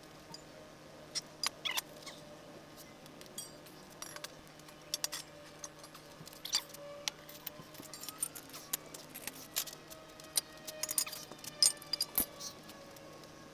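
Scattered sharp clicks and light metallic clinks at irregular intervals, from hand tools and metal parts being handled, over a steady low hum.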